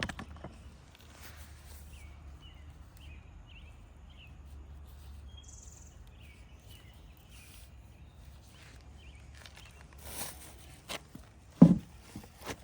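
Quiet outdoor background with a low steady hum and faint short chirps, then a few clicks and one dull thump near the end, like parts or tools being handled.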